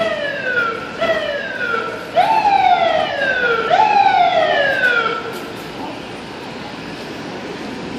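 Fire engine siren on an emergency response. It gives four short whoops, each sliding down in pitch over about a second; the last two jump up sharply first and are louder. It stops about five seconds in.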